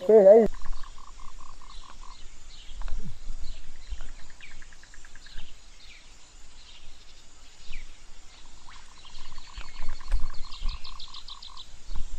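Forest animal calls: a quick, evenly pulsed call repeated in two trains of about two seconds each, one just after the start and one near the end, with scattered higher chirps and a faster high trill. Underneath runs a low thumping rumble from the mountain bike bumping over the dirt trail.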